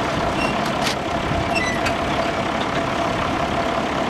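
International 1466's turbocharged six-cylinder diesel idling steadily, with a steady whine above the engine's rumble.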